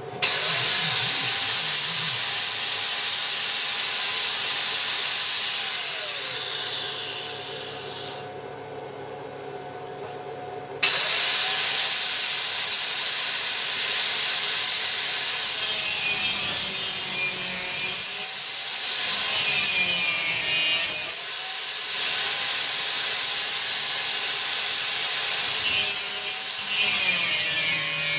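Electric power tool cutting steel. It runs under load, spins down with a falling whine about seven seconds in, and cuts back in abruptly a few seconds later. The motor note sags several times as the blade bites.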